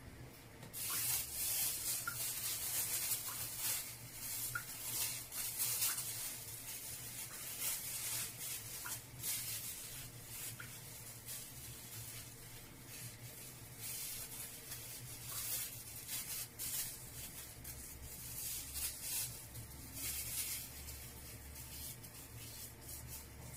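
Irregular rustling and rubbing noises, coming in uneven bursts from about a second in, over a faint steady low hum.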